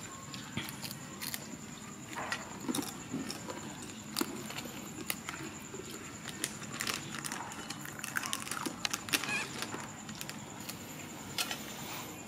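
Scattered crackles and clicks of a plastic snack wrapper being handled, over a faint steady high-pitched tone.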